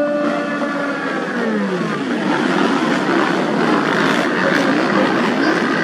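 A steady high engine note slides down in pitch about a second in. It gives way to several racing motorcycles revving and shifting at once, their rising and falling engine notes overlapping.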